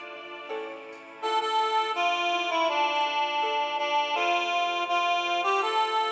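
Instrumental keyboard music of held chords that change every second or so. It plays softly at first, then grows louder and fuller about a second in.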